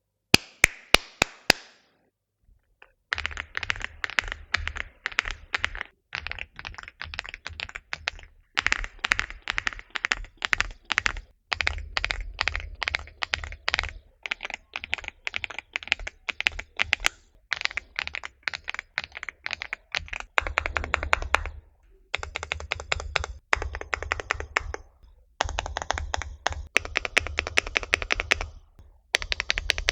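Typing on an Aula mechanical gaming keyboard: fast runs of key clicks in bursts with short pauses, each keystroke a sharp clack with a low thock beneath it. A few separate loud clicks open it, then about a second of quiet before the steady typing starts.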